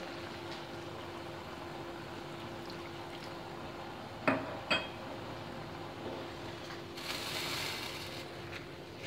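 Water poured from a jug into a pan of simmering chicken and pea curry, with two sharp knocks about four seconds in and a ladle stirring through the thinned gravy near the end.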